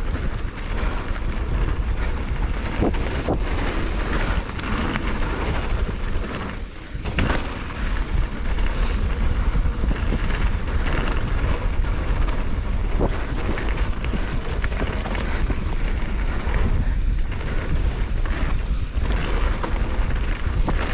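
Wind buffeting the camera's microphone, with mountain-bike tyres rolling over a dry dirt trail and the bike rattling over bumps, sharp knocks now and then. The noise eases briefly about seven seconds in.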